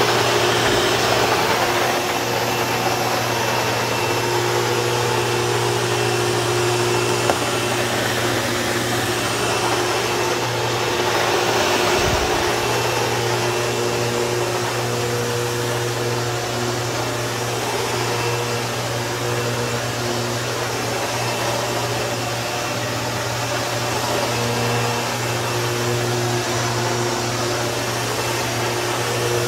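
Sebo Evolution 350 commercial upright vacuum cleaner running steadily, pushed back and forth over carpet and a rug as it sucks up scattered debris.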